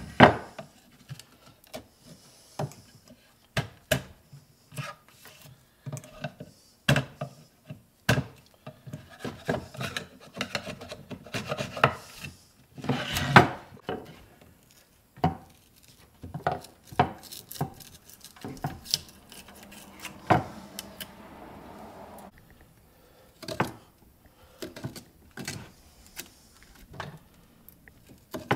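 Dried Gorilla Glue being scraped off a wooden drawer joint with a small metal tool. Metal scrapes and rubs on wood in short, irregular strokes, with occasional sharp clicks.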